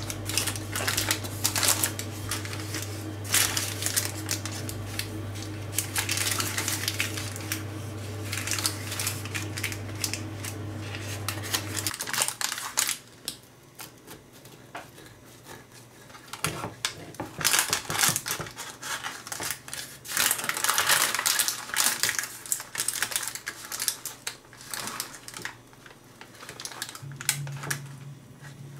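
Parchment paper crinkling and crackling under hands around a crumble-topped apple pie over a steady low hum that cuts off partway through, then a knife cutting through the baked pie's crisp crumble topping and crust in short bursts of crunching.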